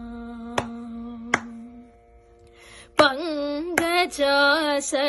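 Solo female voice singing a Carnatic devotional song to Ganesha. She holds a long, steady note that fades out about two seconds in, then after a short pause starts a new, richly ornamented phrase. Two sharp clicks mark the beat during the held note, and more come in once the singing resumes.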